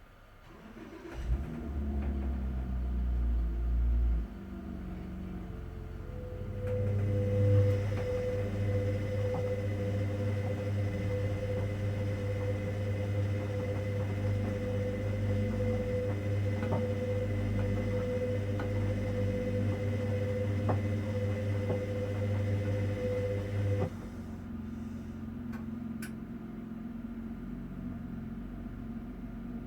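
Hoover Dynamic Next washing machine in the main wash of a 90 °C cotton cycle, its drum motor turning the wash. A low rumble starts about a second in. Then comes a longer stretch of steady motor hum with a whine and a few light clicks, which cuts off suddenly, leaving a quieter background hum.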